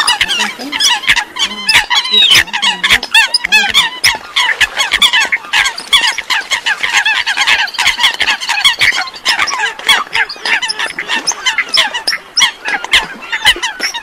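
A dense chorus of Eurasian coots: many short, sharp, squeaky and honking calls overlapping in rapid succession, with sharp clicks among them.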